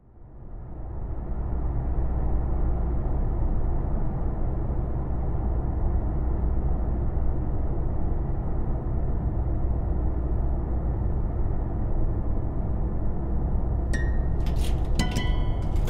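Steady low rumble that fades in from silence over the first two seconds and then holds even, with short clicks and brief ringing tones coming in near the end.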